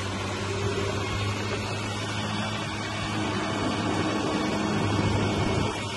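Dune buggy engine running under way, a steady low drone with a rush of noise over it. It grows a little louder towards the end, then eases off just before it.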